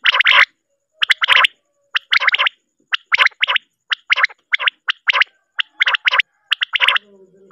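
Recorded common quail (batair) calls played as a hunting lure: short bursts repeated about two to three times a second with brief gaps, coming faster in the middle. A faint low hum enters near the end.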